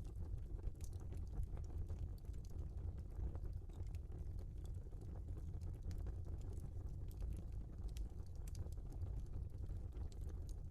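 Logs burning in an open fireplace: a steady low rumble of the flames with sharp crackles and pops at irregular intervals.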